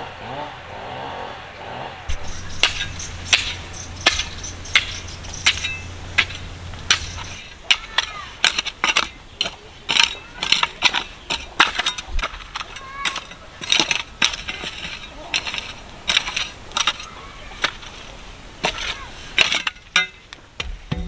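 Hand hoe chopping and scraping into dry, stony soil and weeds, with sharp irregular strikes about twice a second starting about two seconds in.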